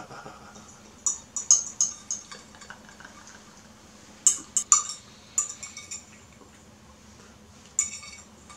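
Metal fork clinking and scraping against a bowl while scooping up the last grains of fried rice: clusters of sharp clinks about a second in, again around four to six seconds in, and briefly near the end.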